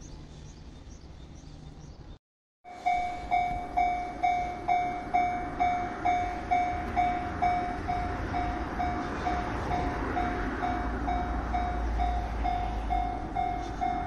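Japanese level-crossing warning bell ringing, a single electronic ding repeated about twice a second, starting about three seconds in after a brief dropout. A low rumble builds underneath in the second half.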